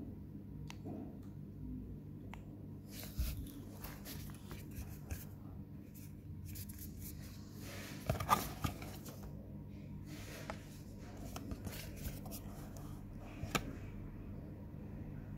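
A small cardboard box being handled and turned over in the hands: irregular rustles, scrapes and light taps, loudest about eight seconds in, over a steady low hum.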